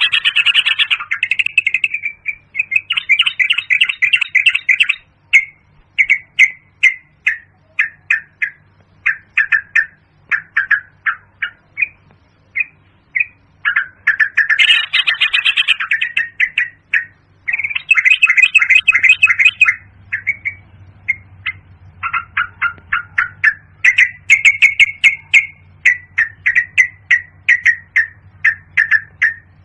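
Yellow-vented bulbul calling: bubbly, chattering phrases that alternate with runs of short, separate chirps, about two a second.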